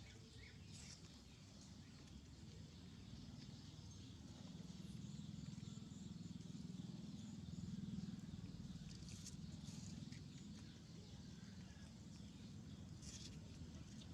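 Faint outdoor background: a steady low rumble with a few scattered short, sharp high clicks.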